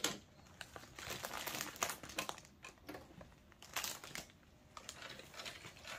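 Light plastic clicks and rustling as hands handle a Lego castle, in irregular clusters, busiest in the first half.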